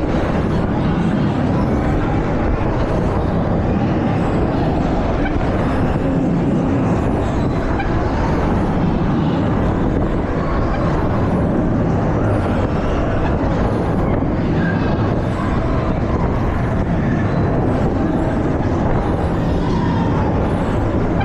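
Steady, loud mechanical rumble, like a vehicle in motion, with no breaks or changes.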